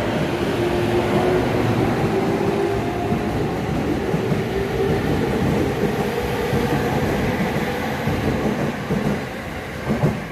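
Sobu Line electric commuter train running through the station on continuous welded rail: a steady rumble with little rail-joint clatter, and a motor whine climbing in pitch as the train gathers speed. The sound eases near the end.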